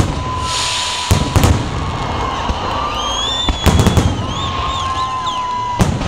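Fireworks salute going off: sharp bangs about a second apart, a quick rapid-fire cluster of bangs in the middle, and another bang near the end. High whistling tones, some held steady and some wavering, run between the bangs over a constant crowd-and-street noise.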